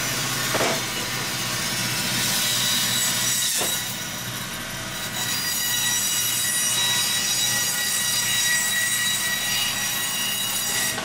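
Meat band saw running and cutting lengthwise through a lamb loin along the backbone, splitting it into two halves: a steady, high-pitched whine over a grinding hiss. The sound dips briefly about four seconds in, then goes on steadily.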